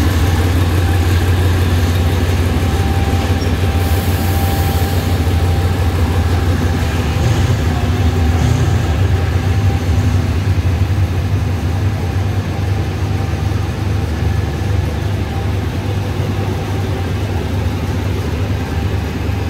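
General Electric diesel-electric locomotive's diesel engine running with a steady low rumble, easing off a little in the second half. A brief hiss comes about four seconds in.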